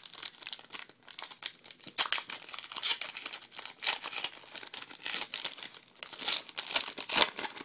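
A trading card pack's wrapper being torn open and crinkled by hand, with dense, irregular crackling throughout.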